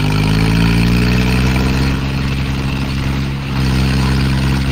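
Tractor diesel engines labouring under heavy load as a John Deere 5050D and a Mahindra pull against each other on a chain. The engine note rises a little at first, then holds steady, with a brief dip about three seconds in.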